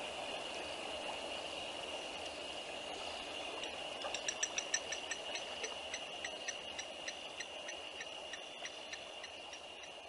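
Dusk chorus of insects at a riverside, a steady high-pitched trill. From about four seconds in, an animal gives a rapid series of sharp clicking calls, about four or five a second at first, then slowing and fading away.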